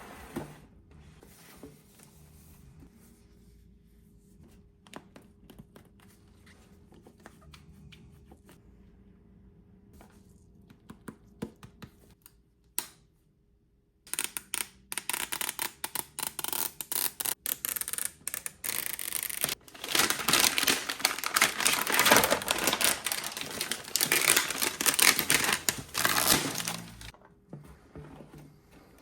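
Toy packaging being handled and torn open: scattered small clicks and taps at first, then, from about halfway through, a long stretch of loud crinkling and tearing that fades near the end.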